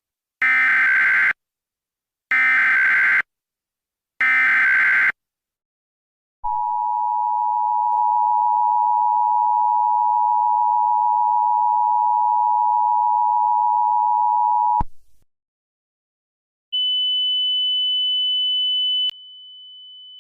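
Emergency Alert System alert opening: three short bursts of SAME header data, then the two-tone EAS attention signal held steadily for about eight seconds and cut off sharply. A couple of seconds later a single higher steady tone starts, dropping to a lower level near the end.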